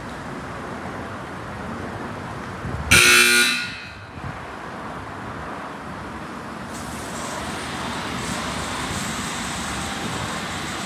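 Steady hiss and hum of a Ryko SoftGloss Maxx 3 automatic car wash bay, cut by one short, loud horn-like honk about three seconds in. A higher hiss joins about seven seconds in.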